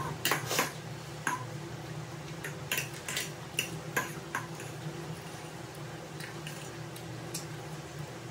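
Close-miked eating sounds: scattered clicks and smacks of chewing fried chicken wings, with a few fork-on-plate clinks, most of them in the first half. A low steady hum runs underneath.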